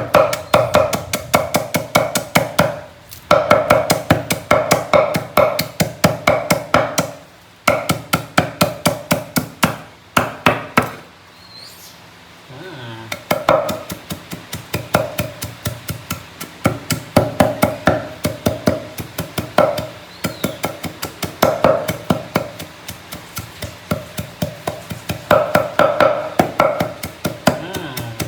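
A knife chopping fast and evenly on a cutting board, in runs of strokes with short breaks about three, seven and eleven seconds in.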